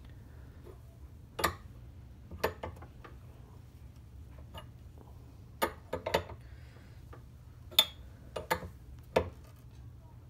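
Allen (hex) key clicking against an aluminium AN hose fitting as it is turned and re-seated in short strokes, tightening the fitting onto its hose: sharp metal clicks at irregular intervals, closer together in the second half, over a faint low hum.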